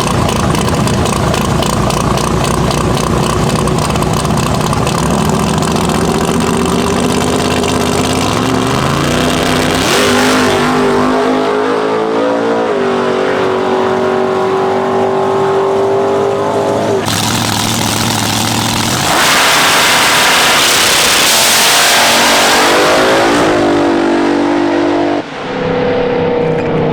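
Car engine running under load and revving, its pitch stepping up and dropping several times, with a loud rushing stretch about two-thirds of the way through.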